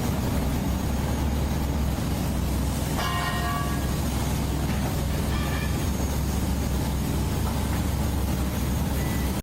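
A heavy engine running steadily with a low rumble. A short high-pitched tone sounds about three seconds in, and a fainter one about two seconds later.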